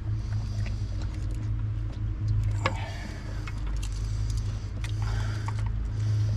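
Steady low motor hum, with scattered light clicks and taps of small metal parts and tools being handled.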